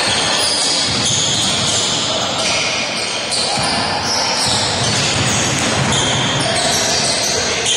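Basketball bouncing on a court during play, over a steady background of game noise.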